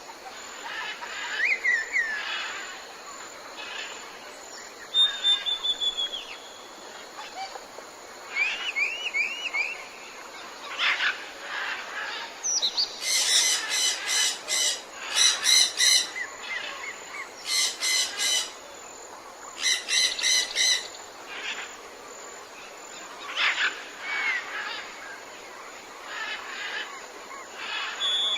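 Tropical jungle birds calling over a steady background hiss: scattered chirps and short whistled glides. In the middle come four loud bouts of rapid repeated harsh notes.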